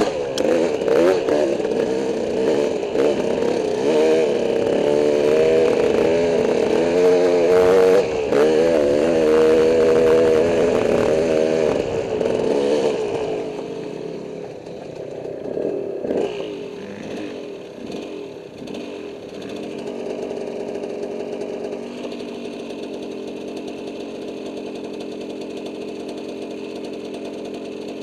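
Dirt bike engine ridden hard on a trail, its pitch rising and falling with the throttle and a few sharp knocks, then easing off about halfway through and settling to a steady idle.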